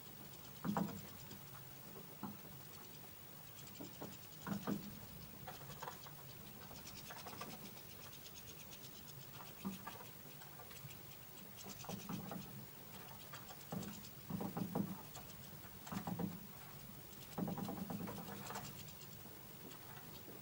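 European goldfinch and Eurasian bullfinches pecking and scrabbling at sunflower seeds in a plastic feeder tray: irregular taps, scratches and seed rattles, some in quick clusters.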